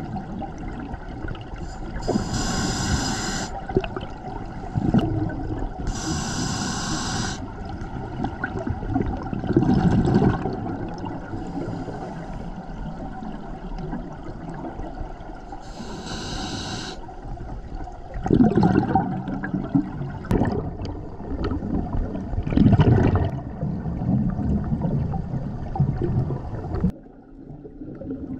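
Scuba breathing through a regulator underwater: a sharp hiss on each inhale and gurgling bubbles on each exhale, a few breaths over the stretch. The sound drops away abruptly near the end.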